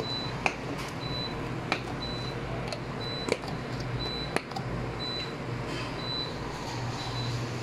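Clear plastic dome lids snapping onto plastic cups: four sharp clicks within the first four and a half seconds, over a steady low hum and a short high beep that repeats about once a second.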